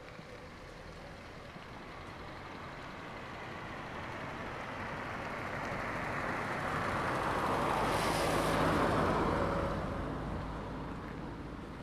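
A motor vehicle driving past on the road: its tyre and engine noise swells slowly, is loudest about eight seconds in, then fades as it moves away.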